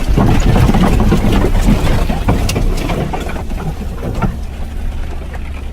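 Off-road vehicle driving over rough ground: a steady low engine rumble with irregular knocks and rattles, louder in the first half and easing later.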